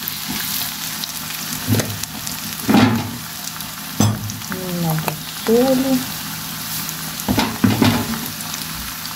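Diced carrots and onions with tomato paste sizzling steadily in a stone-coated non-stick frying pan, stirred with a wooden spatula that scrapes and knocks against the pan several times.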